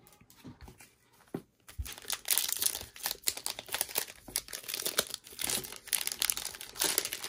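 Foil wrapper of a Prizm football trading-card pack crinkling and tearing as it is ripped open by hand. Faint handling clicks at first, then dense crackling from a couple of seconds in.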